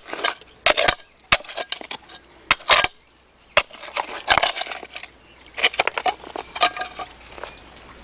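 Small hand digging tool scraping and striking gravel and stones in wet soil: irregular clinks and scrapes in quick spurts, with a brief lull about three seconds in, thinning out near the end.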